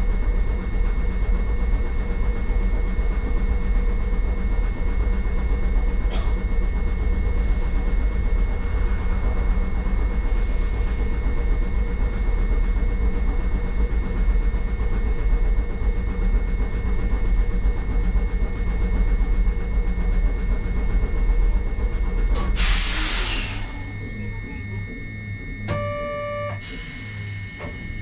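Hankai tramcar standing at a stop with its equipment humming steadily. About 22 s in comes a short burst of air hiss and the hum drops. A brief electronic beep follows, then another burst of hiss near the end.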